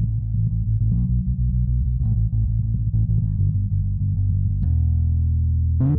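Electric bass guitar played through a Blackstar amPlug2 Fly Bass headphone amplifier on its overdrive channel, gain and tone dials at 1: a run of plucked bass notes, with one low note held for about a second near the end.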